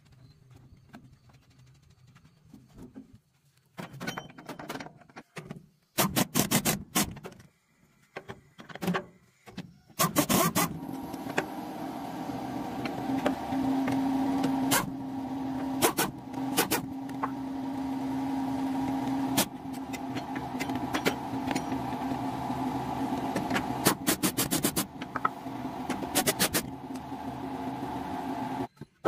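Pneumatic impact wrench rattling in several short bursts as it runs the nuts onto a thresher wheel hub. A steady mechanical hum starts about ten seconds in and runs underneath.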